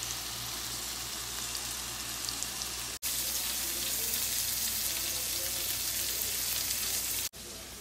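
Food sizzling in a frying pan as a steady hiss with small crackles: vegan burger patties frying, then after a cut about three seconds in, chopped onions frying, more loudly.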